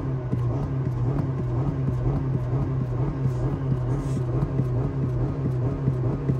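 Honda car engine running at a steady speed, a low even hum heard from inside the cabin.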